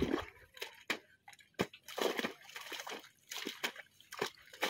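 Spade digging into waterlogged mud: a string of irregular wet slaps, squelches and splashes as the blade cuts and lifts heavy clods and boots shift in the mud.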